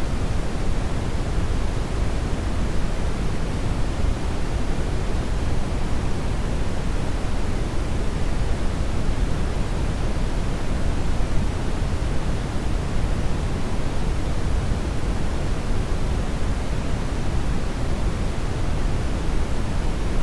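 Steady synthetic noise with no change or events, strongest in the deep low end and thinning to a soft hiss in the treble: closer to pink noise than to the bright, treble-heavy hiss of true purple noise.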